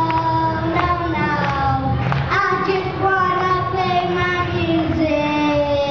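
A young boy singing into a microphone, holding long notes in a pop song.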